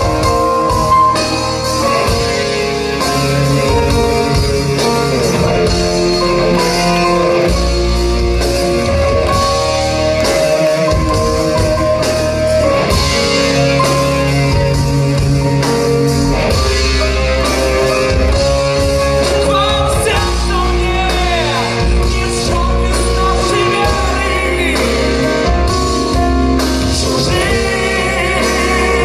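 Live rock band music: drums, bass and sustained melodic instruments, with a male voice singing over it at times.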